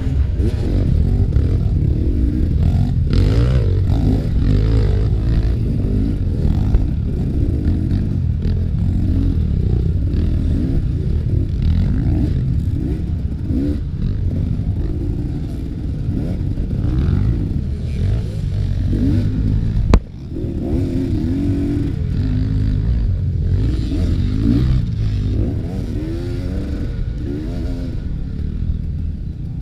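Enduro motorcycle engine revving up and down repeatedly while riding, with clattering. A single sharp knock about twenty seconds in is the loudest moment.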